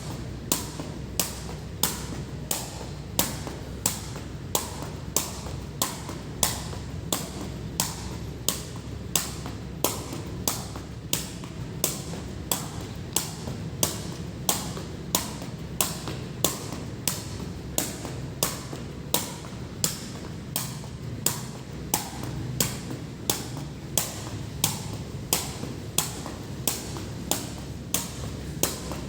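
Rainwater dripping at an even pace onto a hard surface, sharp taps a little under two a second, over a steady low rumble of rain.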